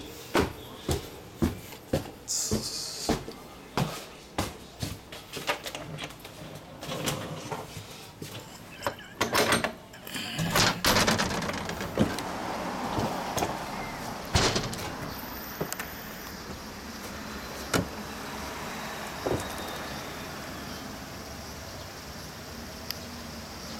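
Footsteps on wooden stairs, about two a second, then a door being opened about ten seconds in, after which a steady hum of outdoor traffic takes over.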